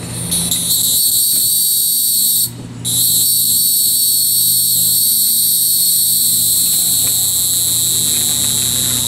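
Hieroglyphic cicada (Neotibicen hieroglyphicus) singing a loud, steady, high-pitched buzz. The song breaks off briefly about two and a half seconds in, then starts again and carries on.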